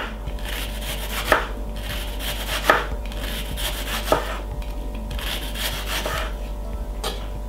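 Kitchen knife slicing a red onion on a wooden chopping board, the blade knocking sharply on the board about every second and a half.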